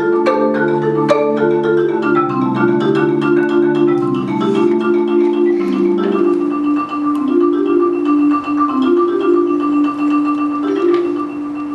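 DeMorrow 4.3-octave concert marimba played live with four mallets in fast, continuous rippling patterns. Low bass notes sound under the runs for the first six seconds or so, then drop out, leaving a lighter pattern in the middle register.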